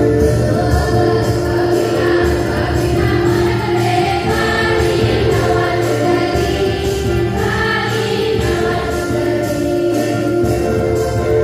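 A choir singing a Christian hymn with instrumental accompaniment.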